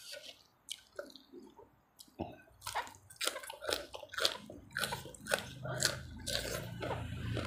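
Close-miked wet biting and chewing of spicy tam sua (papaya salad with khanom jeen rice noodles) and crisp fresh lettuce leaves, a rapid run of smacking, squishing mouth clicks. Fairly quiet for the first two seconds, then the chewing comes in thick and fast.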